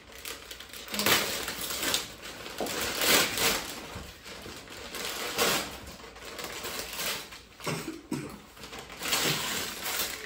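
Gift wrapping paper being torn and crumpled off a box, in irregular rips and crinkles.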